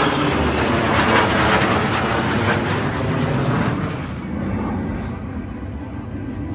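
Jet noise from a formation of F-35 fighter jets and a KC-135 tanker passing overhead: a loud, even roar that eases off after about four seconds as the planes move away.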